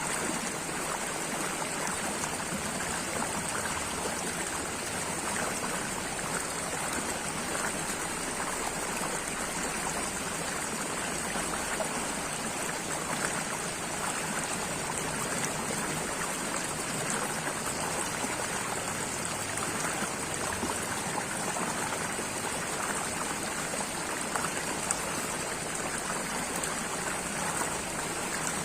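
Running water of a small stream, flowing and trickling steadily without a break.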